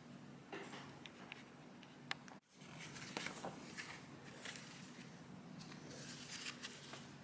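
Faint pencil scratching on paper in short, irregular sketching strokes, with a momentary cut-out about a third of the way in.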